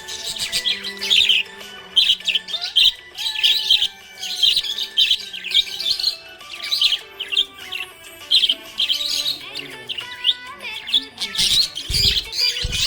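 Budgerigar chirping happily: a steady stream of quick, high chirps and warbles. A low thump comes near the end.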